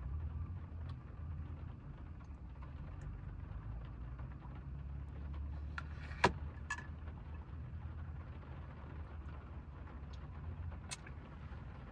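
Steady low rumble of a vehicle engine running, with a few sharp clicks: one about six seconds in, a lighter one just after, and another near the end.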